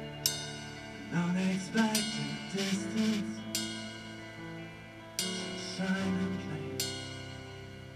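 Live progressive rock band playing: held chords with a melody line over them, and drum-kit cymbal crashes ringing out every second or two.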